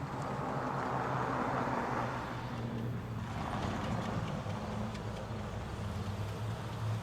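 A vehicle passing on the road, its tyre noise rising and falling, over the low, steady hum of a Federal Signal STH-10 outdoor warning siren still coasting down after its test run.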